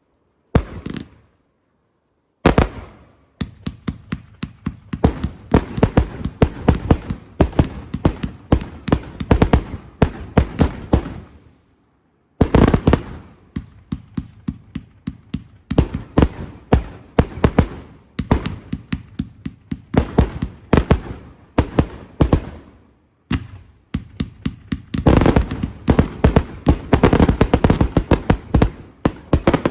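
Fireworks going off in rapid volleys of sharp bangs and crackles, with a few short pauses between salvos and a dense run near the end.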